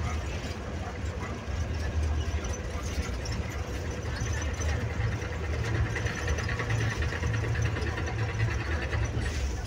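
Bus engine drone and road noise heard from inside the cabin of a moving bus, steady and low-pitched.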